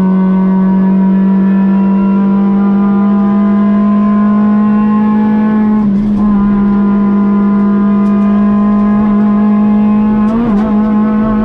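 Kia rally car's engine heard from inside the cabin, running hard at high revs on a stage, its pitch climbing slowly. About six seconds in the note briefly breaks as it shifts gear, then climbs again, with a short wobble near the end.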